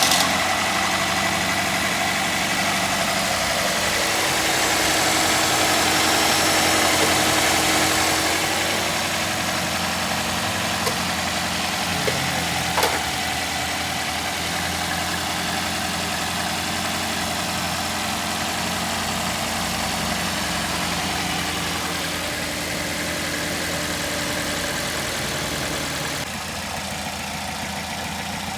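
Toyota GLi petrol engine idling steadily just after being started, its valve tappets freshly adjusted. It runs a little faster and louder for the first several seconds, then settles to an even idle.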